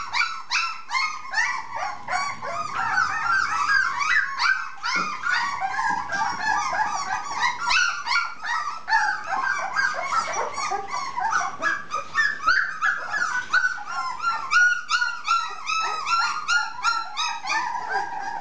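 Young puppies whining and yelping without pause, several short high-pitched calls a second, overlapping one another.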